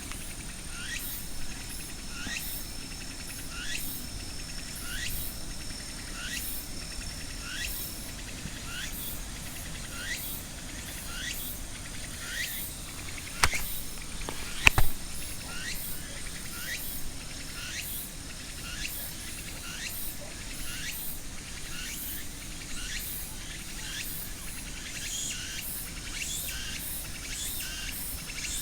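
Insects calling: a steady high buzz with a short rising chirp repeating a little more than once a second. Two sharp knocks about halfway through.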